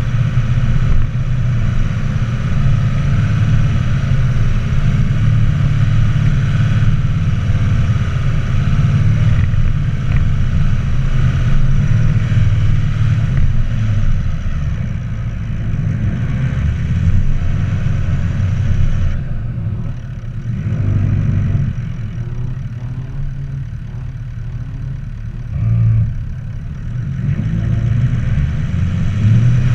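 A vehicle engine running under load while climbing a steep hill track. It eases off about two-thirds of the way through, surges briefly, then picks up again near the end.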